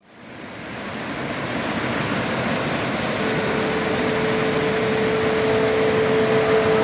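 Waterfall rushing: a steady, even roar of falling water that fades in over the first second or two. A single steady tone joins about three seconds in.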